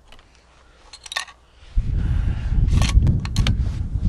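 Wind buffeting the microphone: a loud, uneven low rumble that sets in about two seconds in. A few light clicks come as the rifle is handled, one near one second in and several more near the end.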